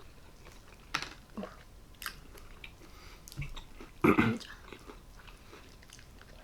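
Close-miked chewing and biting of a large meat sandwich, with a few short crunchy clicks and one louder bite about four seconds in.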